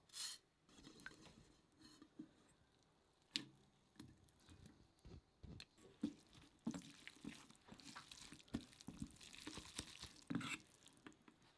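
Faint kitchen sounds of a glass-noodle salad being dressed in a stainless steel bowl: a few light clicks and drips as the seasoning is stirred, a soft wet drop as the boiled noodles and vegetables go in, then a busier run of squishing and scraping as the chopsticks toss the noodles against the bowl in the second half.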